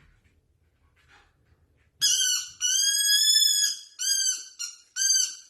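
A dog whining in a series of high-pitched cries starting about two seconds in: a short one, a long drawn-out one, then two shorter ones.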